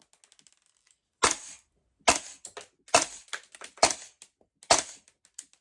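Gas blowback airsoft rifle fitted with a Noveske KFH flash hider firing five single shots, each a sharp crack with the bolt's clack, about one a second.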